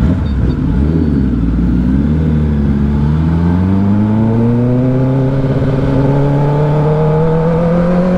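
Kawasaki ZX-10R's 1000cc inline-four engine pulling away and accelerating under throttle. Its pitch wavers up and down in the first couple of seconds, then climbs steadily.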